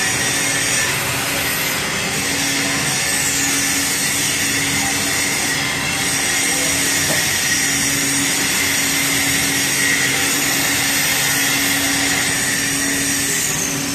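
Hydraulic guided-bend tester running as it bends a welded pipe test strap: a steady mechanical noise with a faint hum.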